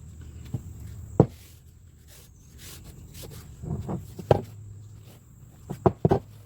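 Irregular knocks and clanks of a heavy 18-inch steel pipe wrench being handled and set down after wire-brushing, a few brief scratchy sounds between them and a low steady hum underneath.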